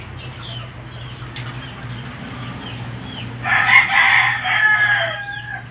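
Gamefowl rooster crowing once, a single crow of about two seconds starting about three and a half seconds in.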